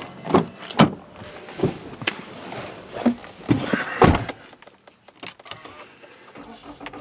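A Toyota car's door being opened and shut as someone gets in: a run of clicks and knocks from the handle, latch and seat, with the heaviest thump about four seconds in as the door closes.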